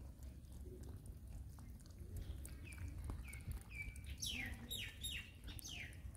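A small bird calling: a few short high notes, then a quick run of four or so notes sliding down in pitch near the end. Underneath, a faint low rumble, with cats chewing and lapping from a shared food bowl.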